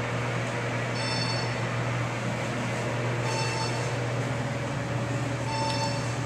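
Otis elevator car travelling upward: a steady low hum with a rushing ride noise, and a short, high electronic beep repeating about every two seconds.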